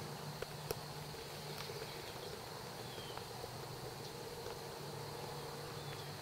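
Steady trilling of field insects such as crickets, with a low hum underneath that drops out about two seconds in and comes back near the end. A few faint clicks sound in the first two seconds.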